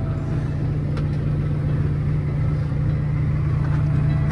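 Cummins ISX diesel engine idling steadily, its newly fitted air compressor pumping up the air tanks.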